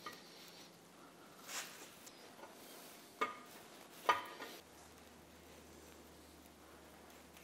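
A few soft metal knocks and scrapes as a greased roller camshaft is slid through the cam bearings of a Holden 304 V8 block. The sharpest knock comes about four seconds in.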